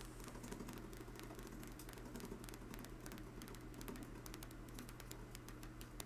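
Homemade rotary switch spinning, its contact wires clicking rapidly against the hard-drive bearing rollers as it makes and breaks the coil circuit, over a steady low hum.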